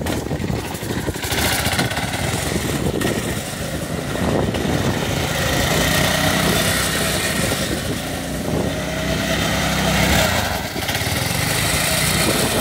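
Small engine of a Murray off-road buggy running as the buggy drives in circles, the revs rising and falling.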